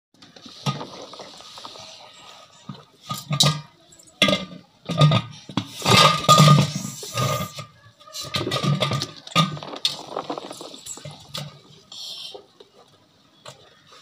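Hands splashing and sloshing in soapy water, in irregular bursts, the loudest about halfway through, then settling quieter near the end.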